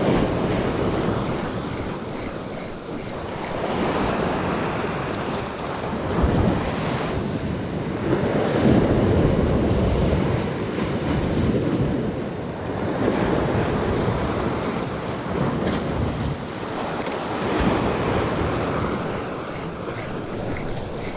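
Sea waves surging in and breaking against a rocky shore, the wash swelling and ebbing every few seconds, with wind buffeting the microphone.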